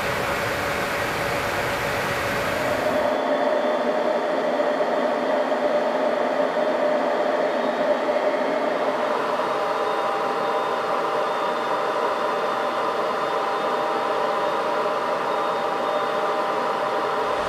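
Steady noise of jet aircraft in flight, heard from inside the aircraft. About three seconds in it cuts abruptly to a thinner rushing sound carrying several steady whining tones.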